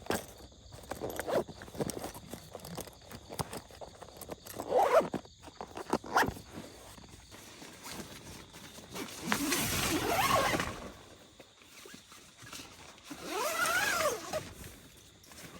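A zipper pulled twice, each pull about one and a half to two seconds long with a rising-and-falling rasp, after a few seconds of handling clicks and rustles.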